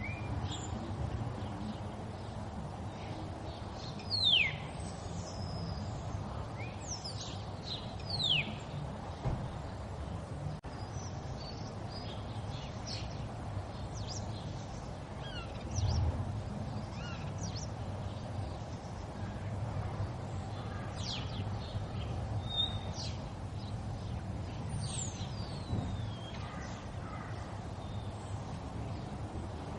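River water flowing with a steady rush. Bird calls sound over it: two loud calls sliding down in pitch about four and eight seconds in, and fainter chirps throughout. There is a low bump about halfway through.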